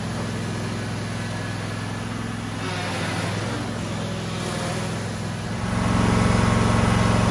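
A John Deere LT180 lawn tractor's engine running steadily as the tractor is driven on its freshly rebuilt hydrostatic transmission. About five and a half seconds in, a cut brings a louder, steady engine run.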